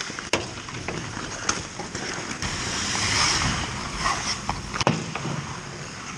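Hockey skates scraping and carving on rink ice, with several sharp clacks of sticks and pucks, the loudest about five seconds in.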